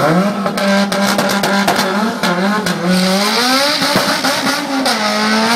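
Turbocharged Honda Civic sedan launching off the drag strip start line and accelerating hard. The engine note jumps in loud, crackles with sharp pops for the first couple of seconds, then rises and drops in pitch a few times as it pulls away through the gears.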